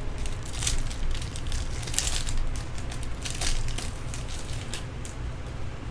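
Trading-card pack wrapper crinkling and crackling in irregular bursts as a pack is torn open and handled, over a steady low hum.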